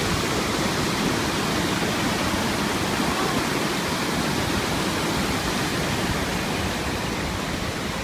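Steady rush of water pouring over the wide rock ledge of Montenegro's Niagara waterfall on the Cijevna river.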